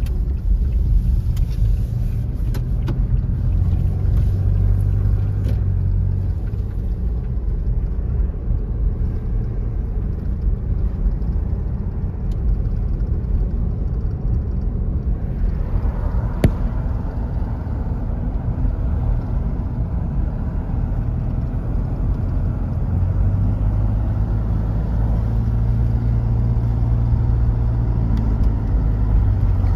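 Car driving on the road: a steady low rumble of engine and tyres, with a brief swell and a single sharp tick about halfway through.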